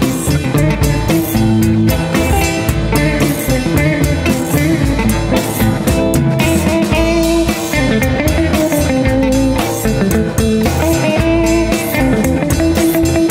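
Background music: a rock track led by guitar over a steady drum kit beat.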